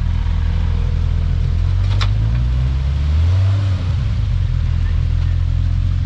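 Off-road 4x4's engine running low and steady while crawling back over rocks, picking up briefly in the middle, with a single sharp click about two seconds in.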